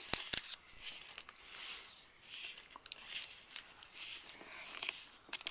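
Mixing candy 'rice' powder with water in a small plastic kit tray: a run of soft scratchy stirring and scraping strokes, with sharp clicks against the plastic, the loudest just after the start.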